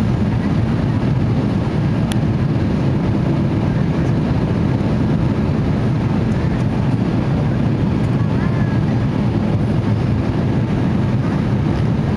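Steady low cabin noise of a jet airliner in flight, engine and rushing-air sound heard from a window seat inside the cabin, with a brief click about two seconds in.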